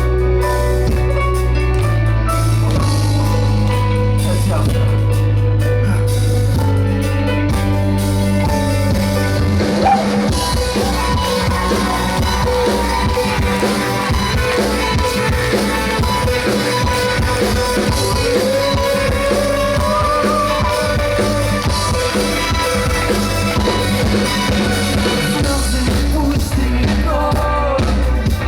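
Live rock band playing, with guitars and drums. Held low bass notes drop out about ten seconds in, and a wavering melody line, likely sung, carries on over the band.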